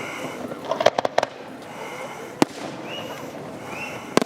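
Fireworks exploding overhead: a quick cluster of sharp bangs about a second in, a single bang a little later, and another cluster of bangs near the end.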